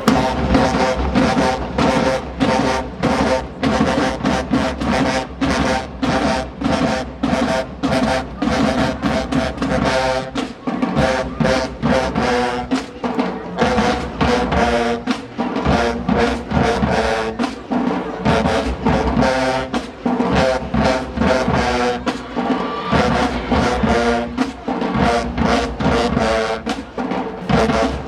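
HBCU marching band playing: brass section over a driving drum line, with loud drum hits on a steady beat.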